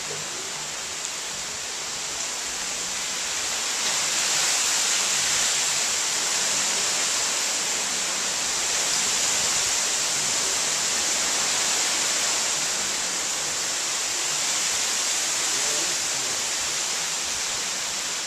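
Heavy rain from a thunderstorm pouring down in a steady loud hiss, growing heavier about four seconds in.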